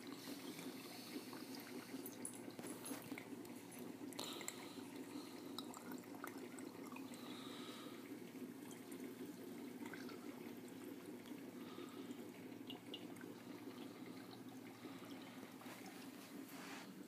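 Faint, steady trickling and dripping of water circulating in a small saltwater reef aquarium, over a constant low hum, with small drips scattered through it.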